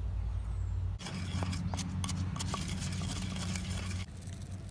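Snake skin grilling on a bamboo skewer over a fire, crackling and sizzling with many quick pops and a few tiny whistles. A low steady rumble comes first for about a second, and the crackle drops quieter just before the end.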